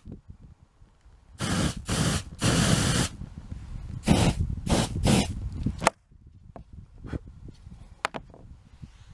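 TRESemmé aerosol hairspray can sprayed in about six short hissing bursts, the longest under a second. After the last burst, only faint ticks of handling.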